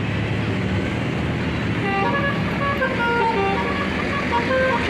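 A bus's telolet horn, a Basuri multi-tone horn, playing a quick tune of short notes at changing pitches, starting about two seconds in. Under it is the steady low running of an engine and road traffic.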